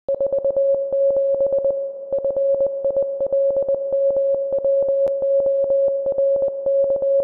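Morse code tone: a single steady beep keyed on and off in quick dots and dashes, with a short pause between groups about two seconds in.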